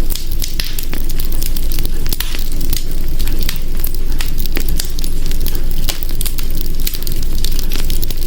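Hearth fire crackling: many irregular sharp pops and snaps over a steady low rumble.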